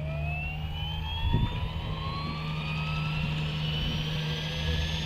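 Electric 450-class RC scale helicopter spooling up: the motor's whine rises slowly and steadily in pitch as the rotor gathers speed, over a steady low hum, with one short thump about a second in.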